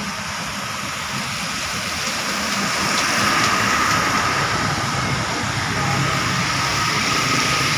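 Coach bus passing close by on a wet road, its engine and the hiss of its tyres on the water rising to a peak about three to four seconds in, amid the steady noise of passing cars and motorcycles.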